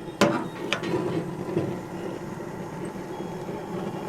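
Gas grill burners lit and burning with a steady rushing sound, after two sharp clicks in the first second.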